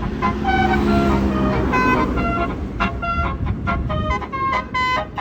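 A bus's telolet basuri musical horn playing a quick tune of short notes, several a second, over the low steady running of the bus engine.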